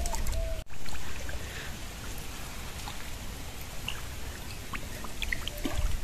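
Shallow water trickling, with scattered small splashes from fish moving in a pond pumped almost dry. A low rumble cuts off suddenly about half a second in.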